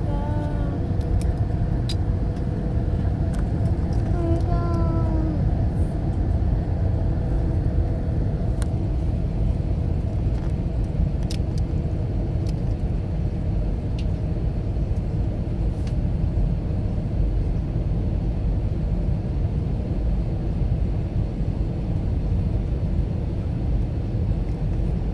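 Steady cabin roar of an Airbus A321 descending on approach, from its engines and the airflow around it, heard inside the cabin with a steady hum through it. A few faint clicks sound now and then.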